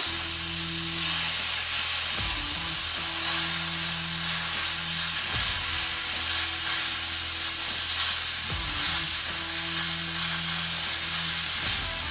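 Bestarc BTC500DP plasma cutter cutting through 10 mm steel: the arc strikes abruptly and a loud, steady sizzling hiss of the air and plasma arc runs on without a break. The machine is running on low air settings supplied by an external compressor.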